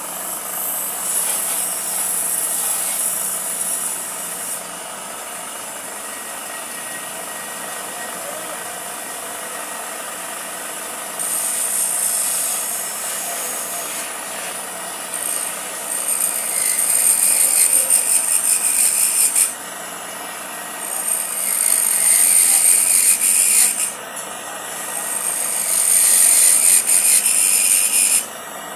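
A tool working wood with a harsh, rasping hiss, in four long bursts of several seconds each, over a steady hum.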